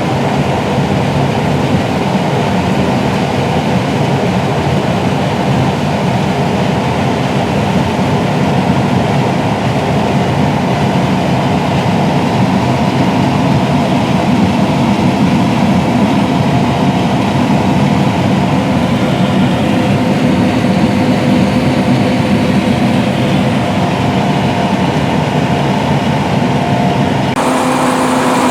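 John Deere S670 combine harvesters running steadily while harvesting corn: a continuous heavy mechanical drone with a few steady tones in it. The sound changes abruptly shortly before the end.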